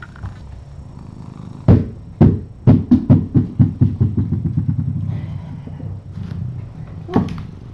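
Sharp knocks on a hard surface. Two loud ones come about two seconds in, then a quickening run of knocks fades out over about two seconds, and one more comes near the end, all over a steady low hum.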